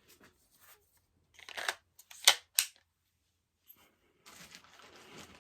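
Byrna LE launcher being handled: a short rustle, then two sharp clicks about a third of a second apart, then a soft scuffling near the end.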